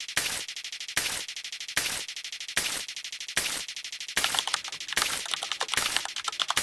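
Counter sound effects: a fast, even run of clicks, well over ten a second, with a louder burst about every 0.8 s.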